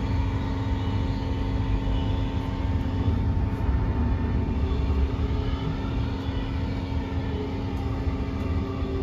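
Cabin sound of a Queensland Rail NGR 700 Series electric multiple unit running between stations: a steady low rumble of wheels on the track, with a constant hum from the electric drive.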